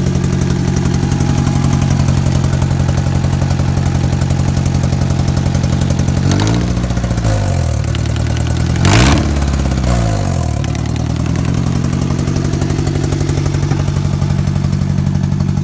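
Honda engine idling roughly with a fast, steady knocking tied to engine speed, which the owner calls rod knock while also suspecting a lifter tick or a damaged valve. About six seconds in the idle sags, then the engine is revved briefly and settles back to idle.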